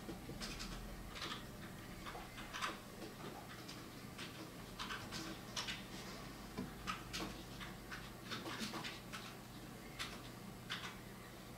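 Brush pen strokes on paper: short, irregular swishes, one or two a second, at an uneven pace.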